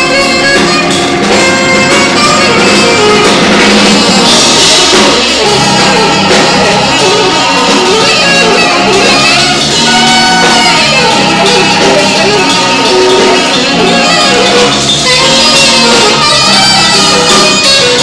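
Live band playing: saxophone and trombone over keyboard and drum kit, loud and steady throughout.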